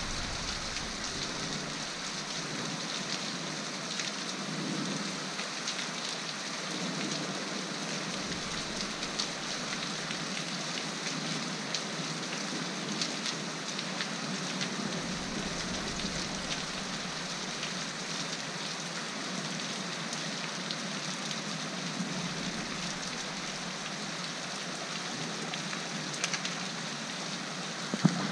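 Steady rain falling on a wet cobbled lane and stone roofs, with scattered ticks of single drops.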